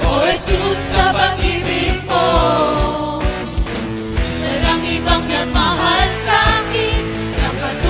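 Christian worship song: voices singing over music with a steady drum beat of about two strokes a second.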